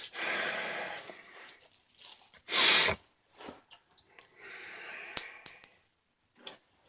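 A man's wheezy, snorting breathing noises, loudest in one sharp burst about three seconds in, with a few faint clicks later.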